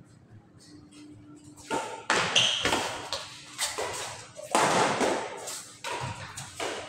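Badminton rackets striking a shuttlecock in a fast doubles rally, a string of sharp hits beginning a couple of seconds in, mixed with the scuffle and brief squeaks of shoes on the court floor.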